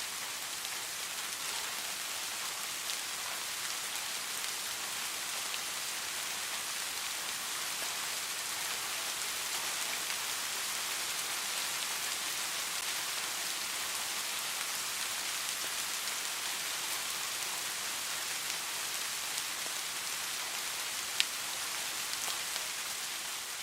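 Steady rainfall, a dense even hiss of drops with scattered individual drop ticks and one sharper drop tick about 21 seconds in; no thunder.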